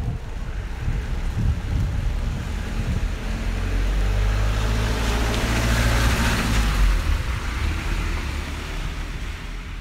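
A van driving slowly past at close range on a wet road: engine running and tyres hissing on the wet asphalt, building to loudest about six seconds in, then fading as it moves on ahead.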